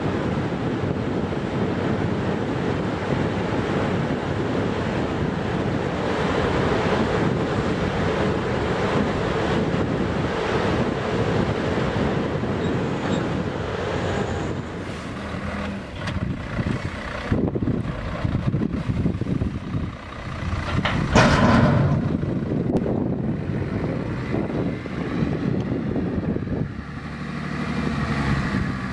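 Ploeger MKC-4TR tracked spinach harvester running steadily under load while its bunker tips into a container. About halfway the steady noise drops away into uneven machine sounds, with a brief loud hiss about two-thirds of the way in. A truck's diesel engine is heard near the end.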